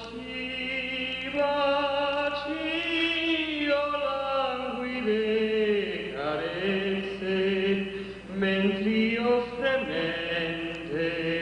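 A man singing solo into a handheld microphone, holding long sustained notes that slide from one pitch to the next.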